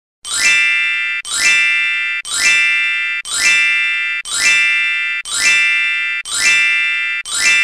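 A bright chime sound effect repeated eight times, about once a second. Each one opens with a quick rising swish and rings on with several high tones before fading.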